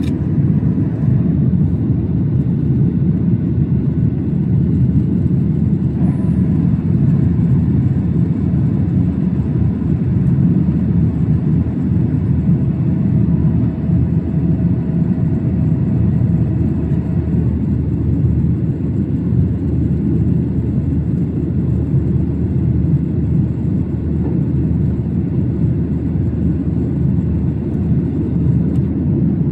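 Steady low rumble of cabin noise inside a Boeing 737-800 airliner, the drone of its engines and airflow.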